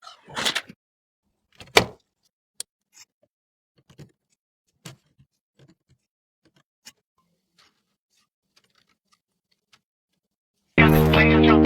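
Scattered small clicks and knocks of computer parts being handled and fitted, with a short scraping rustle about half a second in and a sharp knock near two seconds. Music with guitar comes in loudly near the end.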